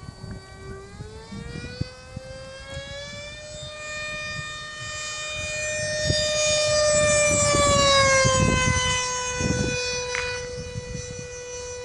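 Ducted fans of a giant-scale radio-controlled Boeing 737-300 model whining in a low flyby. The pitch climbs over the first few seconds, the whine grows loudest around eight seconds in, then drops in pitch as the plane passes.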